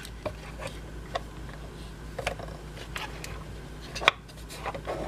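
Scattered light clicks and taps of a plastic toy fridge being handled as its push-pop-and-drop freezer dispenser is worked, about eight separate clicks over a few seconds.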